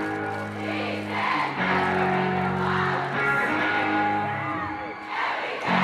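Music led by guitar, with held notes and chords that change every second or so.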